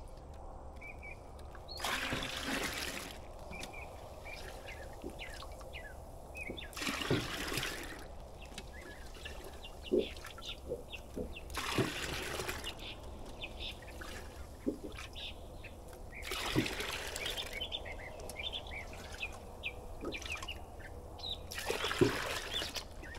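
Compost tea poured in five short pours of about a second each, several seconds apart. Birds chirp in between.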